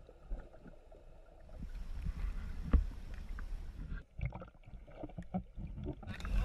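Low wind rumble on the microphone, with water sloshing and scattered knocks on a small boat.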